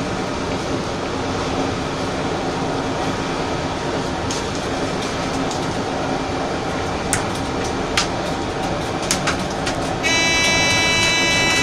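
Train running at speed on the rails, heard from the cab: a steady rumble with a few sharp squeaks and clicks. About ten seconds in, a steady high tone of several pitches sounds for nearly two seconds.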